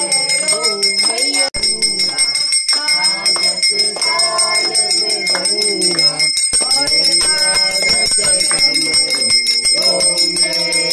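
A devotional song: a voice singing a flowing melody over a fast, steady jingling of small bells, with high bell tones ringing on.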